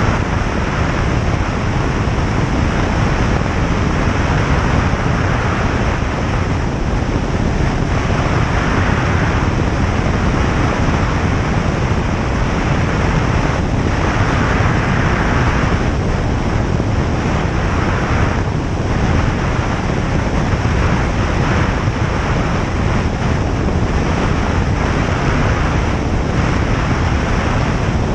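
Single-engine light aircraft's engine and propeller droning steadily, heard from inside the cabin, mixed with the rush of airflow that swells and eases slightly.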